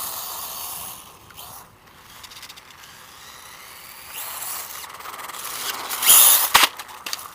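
Brushless RC dirt bike driving, its electric motor and drivetrain running with tyre noise on the ground; the sound fades about a second in, builds again and peaks in a short loud burst about six seconds in.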